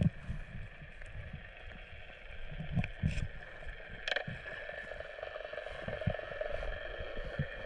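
Underwater sound heard through a camera housing: a low, uneven rumble of moving water with a steady hum over it, and a couple of sharp clicks about three and four seconds in.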